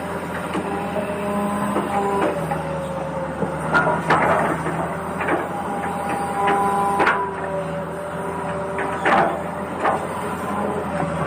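Toy RC excavator's small electric motors whining, the pitch jumping up and down as different functions start and stop, with several sharp knocks and clatters from the arm and bucket.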